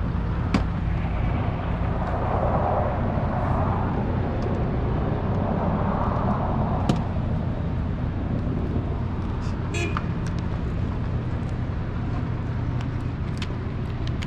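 A car engine idling steadily with a low hum. Two swells of noise come through, and a few light clicks.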